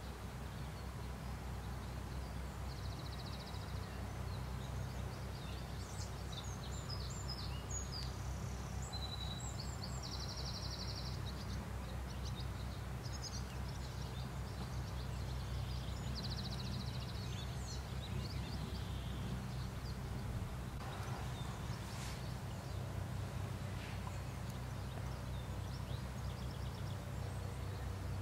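Outdoor ambience: birds chirping, with a short rapid trill every several seconds, over a steady low rumble.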